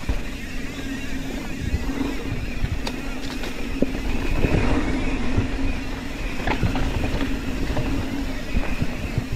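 Mountain bike descending a dirt singletrack: tyres rolling over packed dirt with a constant low rumble, a steady buzz, and short knocks and rattles as the bike hits bumps.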